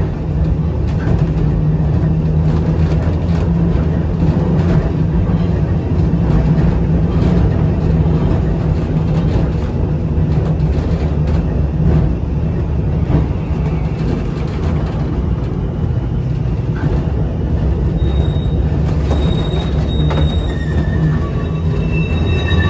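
Vintage A-type electric tram running, heard from inside the saloon: a steady low rumble and hum of the motors and wheels on the track, with scattered faint clicks. Near the end, short high-pitched squeals come in at several pitches.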